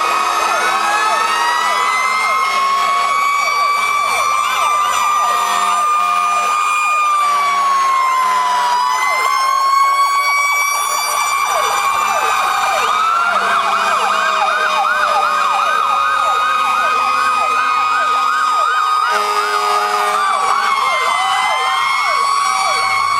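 Several fire truck sirens sounding at once as the trucks drive past, slow wails overlapping with fast yelping sweeps. One siren's pitch falls slowly over about ten seconds in the middle.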